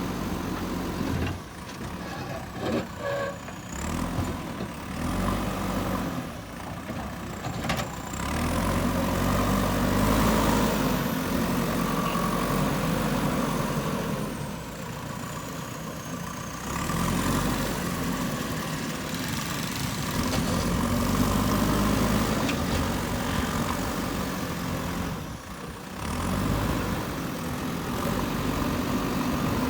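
JCB 3DX backhoe loader's diesel engine running, its revs rising and easing several times as it works. A few sharp knocks sound in the first several seconds.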